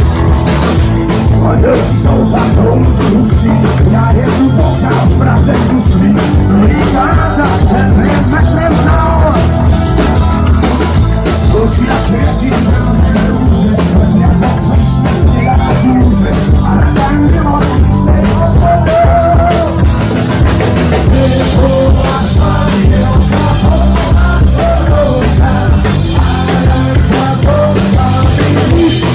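Punk rock band playing live, with singing over loud guitars, bass and a driving drum beat; the recording is loud and rough.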